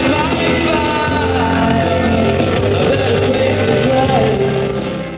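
A song with singing over a band backing, fading out at the end.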